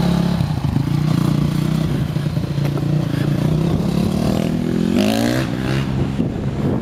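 Honda CRF250 dirt bike's single-cylinder four-stroke engine running steadily as it pulls away, then revving up in a rising sweep about four to five seconds in.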